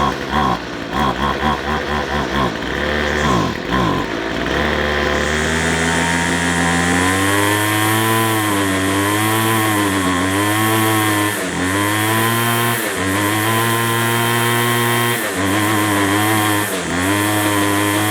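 McCulloch strimmer's small two-stroke engine running, at first stuttering and uneven, then settling into a steady revving note that sags and picks up again every second or two. The owner suspects the carburettor diaphragm of not drawing fuel properly.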